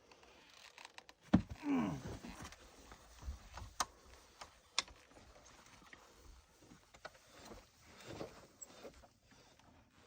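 Quiet handling noises with no engine running: a few sharp clicks and knocks among rustling, and a short sound falling in pitch about two seconds in.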